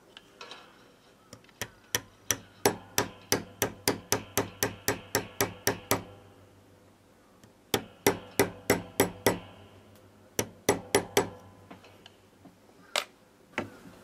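Small hammer tapping a pin punch to drive the hinge pin out of a vintage Rollalite lighter's metal case: a run of about fifteen quick, ringing metallic taps, three to four a second, then a run of six, a run of four, and two last taps near the end.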